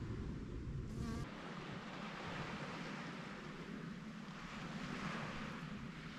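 Insects buzzing around flowering shrubs, with wind rumbling on the microphone for about the first second. After that the rumble drops away, leaving a steady soft hiss of wind and distant sea.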